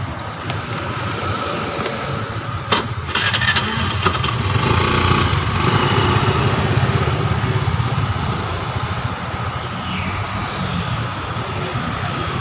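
Motor scooter being started: a sharp click about three seconds in, then the engine catches and runs, swelling as it pulls away and easing off toward the end.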